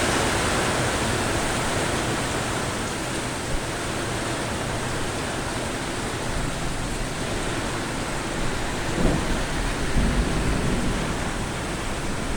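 Heavy rain pouring down steadily in a thunderstorm. A low rumble of thunder swells in about two-thirds of the way through.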